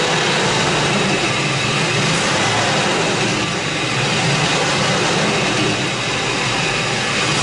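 2004 Ford F-150 truck engine running steadily, with no change in speed.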